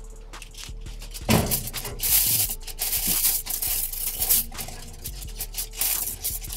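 Foil-covered metal baking dish set down on an oven's wire rack with a knock about a second in. It is then scraped and slid along the rack in rough, rubbing strokes, with the foil rustling.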